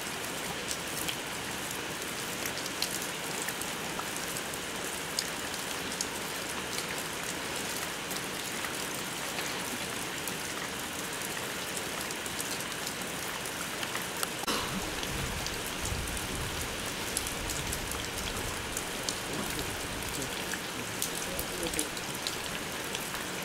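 Steady rain falling, a constant hiss dotted with many small drop ticks. A low rumble joins it for a few seconds past the middle.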